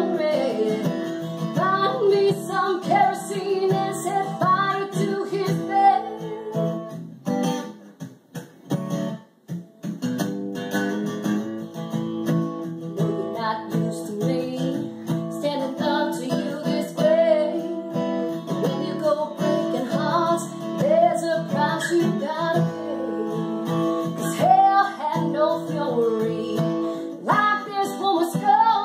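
Country song: strummed acoustic guitar with a voice singing over it. The music thins to a few scattered guitar strokes for a couple of seconds about eight seconds in, then the full strumming and singing return.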